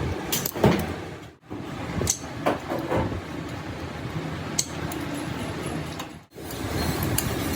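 Workshop work noise: scattered metal knocks and clinks over a steady background din, with two brief abrupt dropouts.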